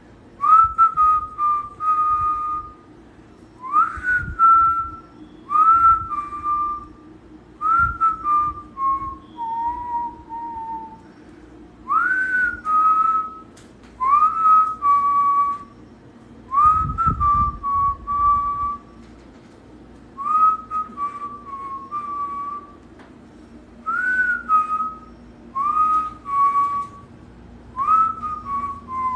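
A person whistling the same short call over and over, about every two seconds: each a quick upward slide into a note, then a slightly lower held note, a few of them stepping down lower at the end.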